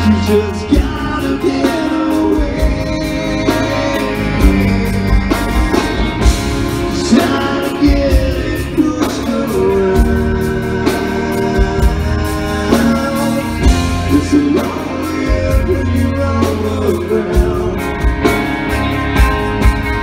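Rock song with singing over guitar and a steady drum beat.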